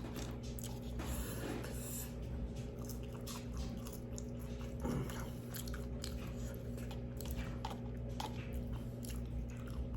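Close-up chewing and crunching of Carolina Reaper hot chicken, with irregular bites and crackles over a steady low electrical hum.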